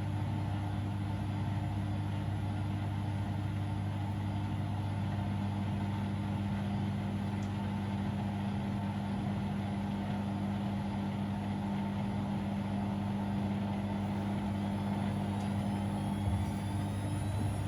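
Siemens Extraklasse XLS 140 A front-loading washing machine running mid-cycle on a 90 °C boil wash: a steady mechanical hum. Near the end a faint rising whine starts.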